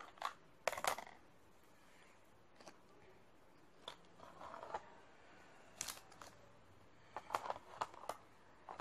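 A plastic lunch box and its lid being handled: scattered light clicks and taps in several small clusters, the busiest about a second in and again between seven and eight seconds in.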